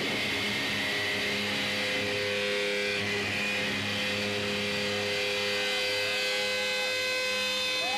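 Electric guitar feedback and amp drone through a Marshall amplifier: several steady sustained tones, with short wavering squeals partway through and a new higher tone rising near the end.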